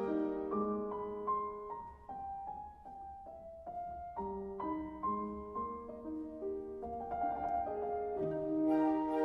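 Background music: a slow solo piano melody with sustained chords.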